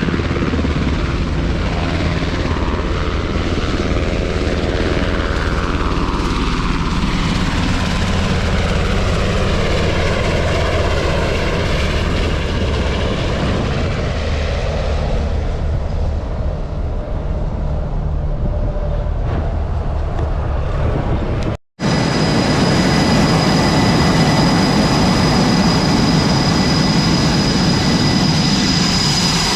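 Loud jet aircraft engines running on a carrier flight deck, with sweeping changes in the sound as aircraft move. After a brief cut, a steady jet engine noise with a high, even whine.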